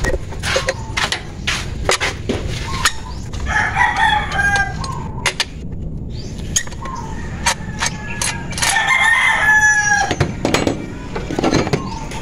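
A rooster crowing twice, about three and a half seconds in and again, louder, about eight and a half seconds in. Throughout there are short sharp clicks and knocks from a T-handle socket wrench working the nuts of a Toyota engine's plastic cover.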